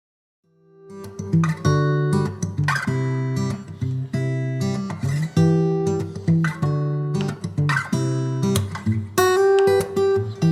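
Background music of strummed acoustic guitar chords, fading in from silence about a second in.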